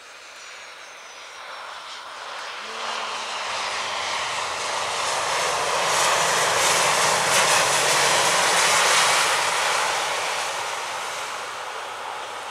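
Boeing 737-800's CFM56 jet engines roaring in reverse thrust during the landing rollout on a wet runway, with a steady low hum under the roar and the hiss of tyre spray. It swells to its loudest about six to nine seconds in as the jet passes, then fades.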